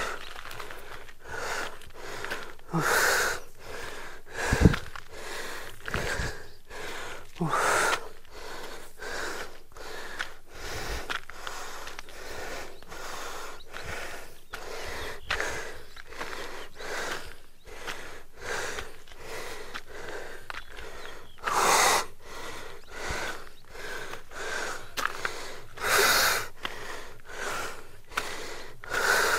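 A person breathing hard and fast from climbing uphill on foot, in quick regular breaths with several louder, harsher gasps along the way.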